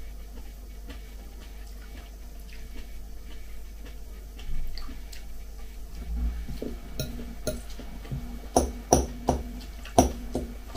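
Soft chewing of leafy salad, then a metal fork stirring the greens and clinking against a glass bowl, with a run of sharp clinks in the second half.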